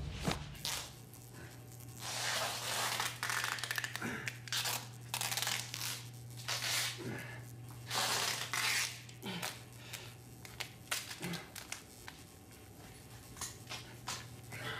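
Cloth rustling and crumpling in irregular bursts as a T-shirt is grabbed and pulled on, over a steady low hum.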